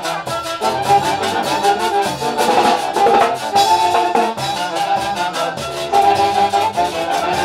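A live orchestra plays festive music, wind instruments carrying a melody over a steady drum beat.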